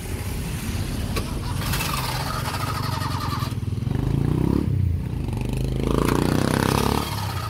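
Owner-type jeep's starter cranking the engine with the clutch pressed down, in long pulls that don't catch. The crank is taken for the sign of a weak battery.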